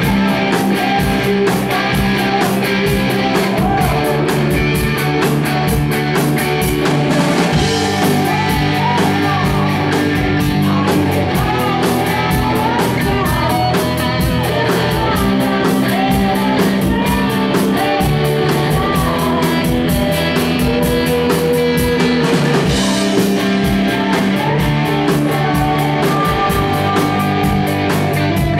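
Live rock band playing: electric guitar, drum kit with a steady beat and keyboard, with a woman singing over them.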